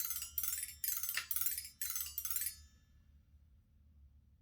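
Toy xylophone bars struck quickly with a stick, about two to three ringing taps a second. The taps stop about two and a half seconds in.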